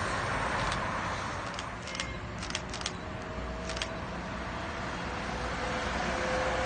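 Street traffic noise as a Neoplan electric trolleybus approaches, growing louder near the end, with a few sharp clicks in the middle.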